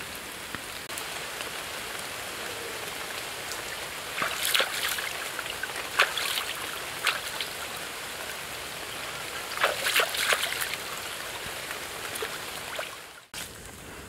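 Shallow stream water running steadily, with splashes and drips as hands rinse a gutted bird in it, loudest a few times between about four and ten seconds in.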